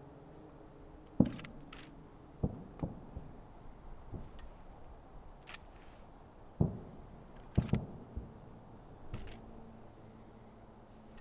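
Distant fireworks exploding: irregular low booms, each fading in a short echo, about a second in, twice around two and a half seconds, and a cluster of three between six and a half and eight seconds. A few faint sharp clicks fall between them.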